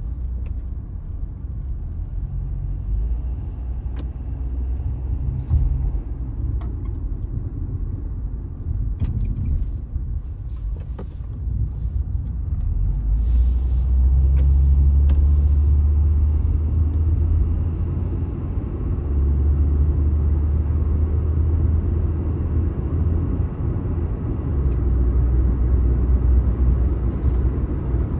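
Car's low engine and road rumble heard from inside the cabin as it drives along, growing louder about halfway through.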